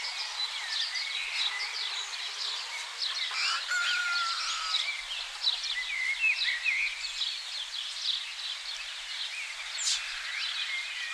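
Many small songbirds chirping and twittering, with dense, overlapping short high calls and trills.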